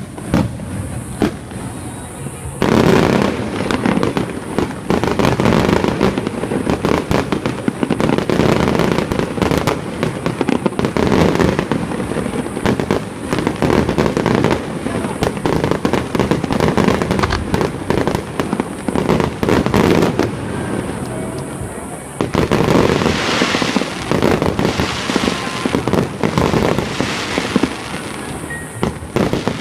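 Aerial fireworks display: a dense, rapid barrage of bangs and crackling that starts about three seconds in and goes on almost without a break, with a short lull about two-thirds of the way through.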